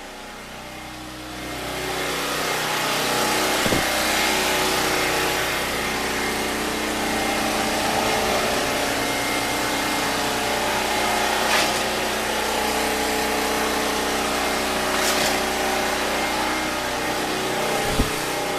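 Predator 6500 watt open-frame generator's single-cylinder four-stroke engine running steadily under load, getting louder about a second and a half in, with a few sharp clicks or knocks.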